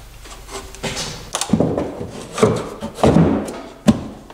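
A plywood platform on 2x4 runners and legs being set down into the rear seat well of a UTV: a series of wooden thuds, knocks and scrapes as it settles into place, with one sharp knock near the end.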